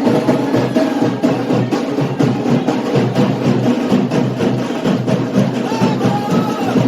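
Loud music driven by fast, dense percussion: drums and sharp wood-block-like clicks in a busy, continuous rhythm.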